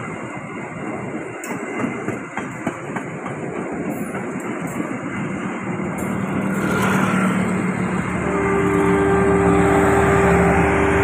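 Passenger train coaches rolling past on the rails, with wheel rumble and scattered clicks from the rail joints. The rumble grows louder in the second half. A steady droning hum with a few held tones joins after about eight seconds, as the train's generator car passes close.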